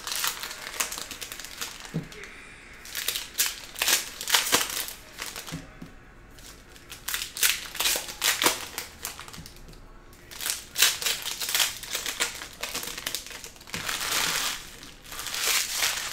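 Foil wrapper of a trading-card pack crinkling as it is torn open and handled, in several short spells of sharp crackling with quieter gaps between them.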